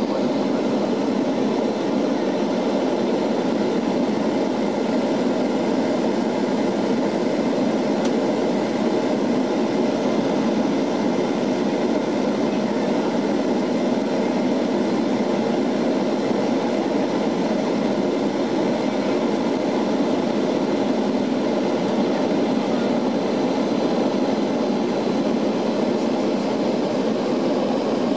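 Steady cabin drone of a Lockheed L-188 Electra's four Allison 501 turboprop engines and propellers in flight, an even, unchanging noise with a few faint steady whining tones above it.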